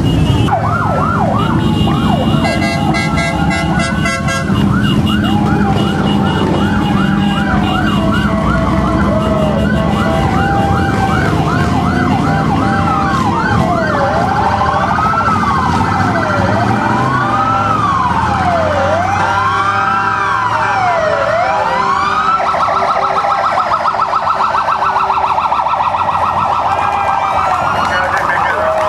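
Emergency vehicle sirens from fire-company and ambulance vehicles in a slow procession: a fast yelp for about the first twelve seconds, then a slow rising-and-falling wail, then a rapid high-low warble near the end. The low rumble of motorcycle engines runs underneath in the first half.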